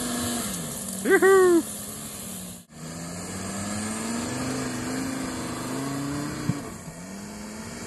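Volkswagen Touareg's engine pulling under load as the SUV climbs across a steep grassy slope, its note slowly rising and then falling near the end. A brief shout comes about a second in.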